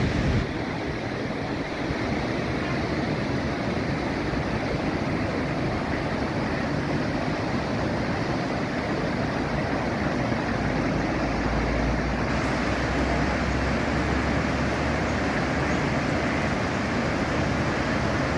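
Steady rush of a large waterfall: constant, even noise of falling water, with a low rumble swelling for a few seconds in the middle.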